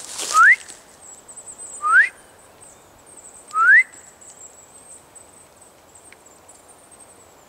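Three short whistles, each sliding quickly upward, about a second and a half apart.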